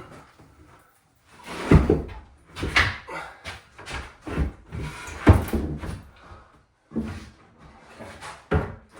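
Wooden kitchen cabinet box knocking and bumping as a heavy upper cabinet is lifted and shifted into place against the wall: a series of sharp knocks, the loudest about two and five seconds in.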